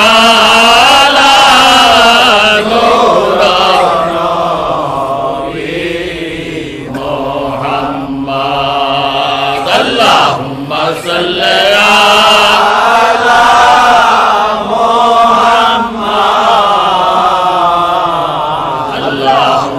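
Men chanting a devotional milad recitation in long, held, slowly gliding melodic lines. The chant grows quieter for a few seconds in the middle, breaks off briefly, then resumes at full strength.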